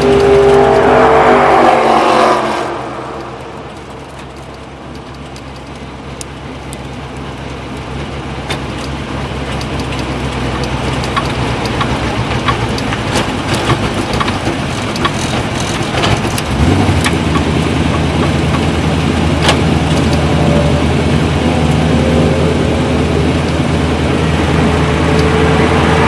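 Indy-style open-wheel race car's engine heard from on board: at high revs for the first two seconds or so, then the throttle is lifted and it falls away to a quiet coast with wind noise and scattered ticks. About two-thirds of the way in, a steady low engine note returns and rises again toward the end.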